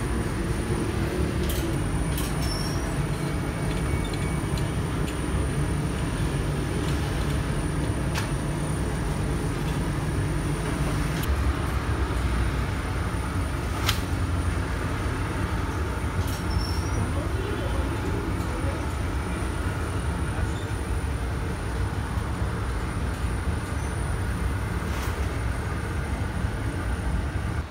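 Automatic taftoon bread machine running: a steady low mechanical rumble with a faint high whine, and a few sharp clicks scattered through.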